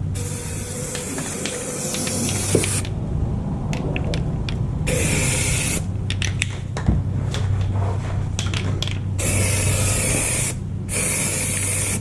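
Aerosol can of rubberized undercoating spraying in four bursts: a long one of nearly three seconds, then three shorter ones of about a second each, with a steady low hum underneath.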